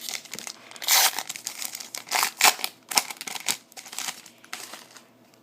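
Foil wrapper of a trading-card pack crinkling and tearing as it is handled and opened, in irregular crisp rustles that thin out near the end.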